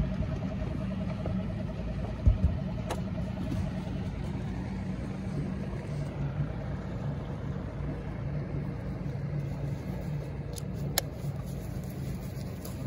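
Boat outboard motor running steadily with a low drone, with a brief thump about two seconds in.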